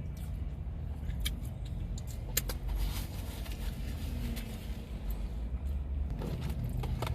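Low steady rumble of a Chevrolet Suburban running, heard from inside the cabin, with scattered small clicks and crackles from eating and handling food.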